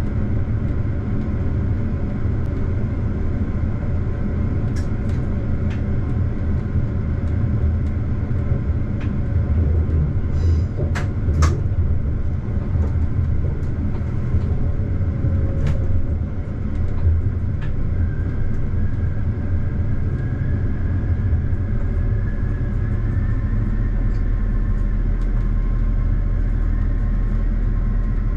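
Regional diesel multiple unit running along the track: a steady low rumble of the train in motion, with scattered sharp clicks from the wheels over the track, a cluster of them about ten seconds in. In the last third a faint high whine rises slightly and a deeper hum sets in.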